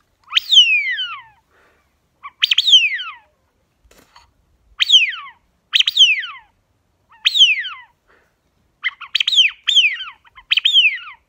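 A wigeon call worked by sucking rather than blowing, imitating the drake wigeon's whistle: about nine sharp whistles, each sliding steeply down in pitch, spaced a second or two apart at first and coming quicker, in pairs, near the end.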